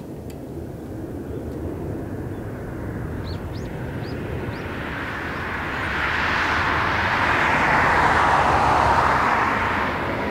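Boeing 747-400 freighter's four jet engines at takeoff power as it lifts off and climbs out. A broad roar builds steadily, is loudest about eight seconds in, then eases slightly near the end.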